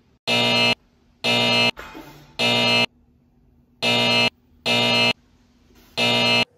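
Game-show style wrong-answer buzzer sound effect, sounding six times in short harsh buzzes of about half a second each, with silent gaps between them. It marks each form mistake as wrong.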